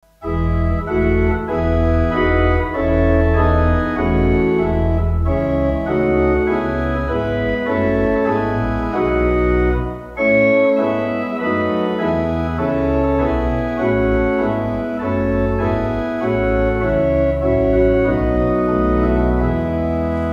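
Organ music as an opening voluntary: sustained chords over deep bass notes, the harmony changing every second or so, with a brief dip in level about ten seconds in.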